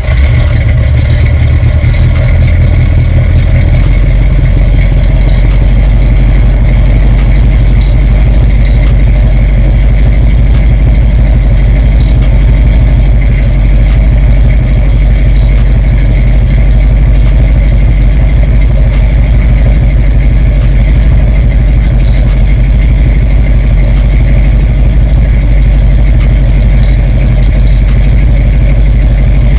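Car engine catching as it is started and then idling loudly and steadily, a little heavier in the first few seconds before it settles.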